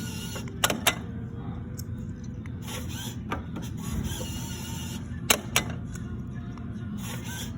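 Lottery ticket vending machine running with a steady low hum, with two pairs of sharp clicks, one about a second in and one about five seconds in, as tickets are selected and dispensed.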